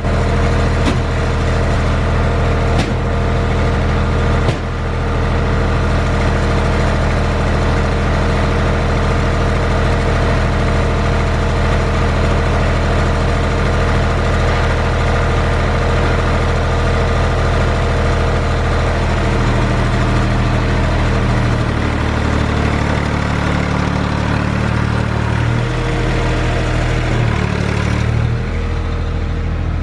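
An engine running steadily, with its pitch shifting and wavering in the second half as if under changing load.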